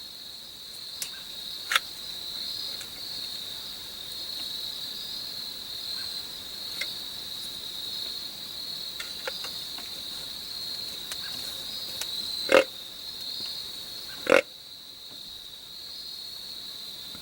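Steady high-pitched chorus of insects, crickets, with a few short sharp clicks or knocks, the loudest about 12.5 and 14.5 seconds in.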